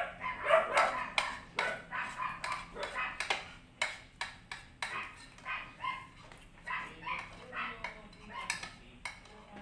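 A dog barking repeatedly in short yaps, two or three a second, with spoons clinking against bowls and plates.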